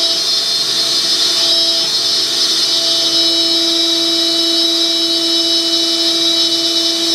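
Matsuura MAM72-63V 5-axis CNC machining center running, with a steady high-pitched motor whine. A lower hum of two tones cuts in and out, then holds on from about three seconds in.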